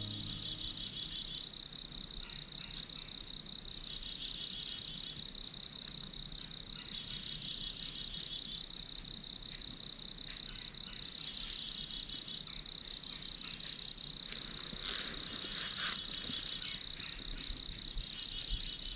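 Insects trilling: one steady, high, fast-pulsing trill runs throughout, while a second, slightly lower trill comes in for a second or so about every three to four seconds. Faint scattered ticks sit underneath.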